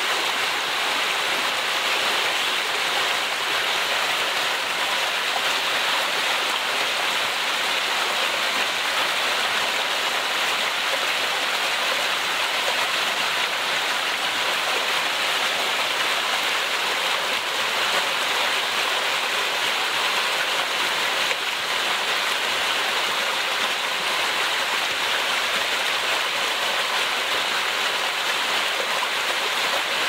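Small forest stream splashing down a short rocky cascade: a steady rush of running water that holds even throughout.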